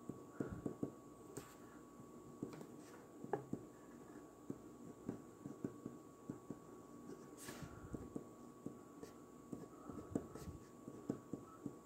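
Ballpoint pen writing on paper: faint, irregular scratches and taps of the pen strokes as words are written out by hand.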